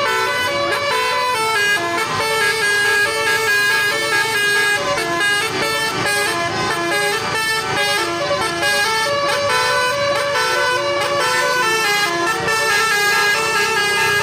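Basuri (telolet) multi-tone musical horn playing a melody, its notes stepping in pitch several times a second without a break.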